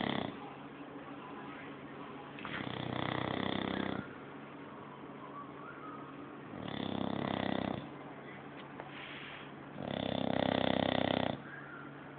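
English bulldog snoring in slow, regular snores, three full ones about every three and a half seconds, with quieter breathing between them.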